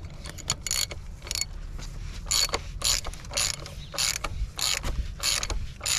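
Hand ratchet on a 32 mm socket clicking in short quick runs as it winds a plastic oil filter cap down into its housing.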